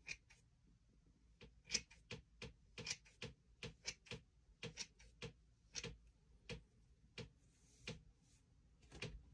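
A faint series of sharp, irregular clicks, about two to three a second, thinning out near the end.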